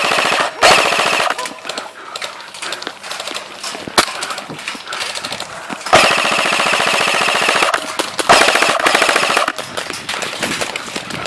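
Airsoft guns firing on full auto in several rapid bursts, the longest lasting about a second and a half, with scattered single shots in between.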